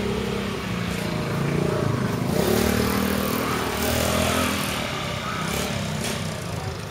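Motor vehicle engines running as cars pass close by on a street, louder around the middle as one goes right past.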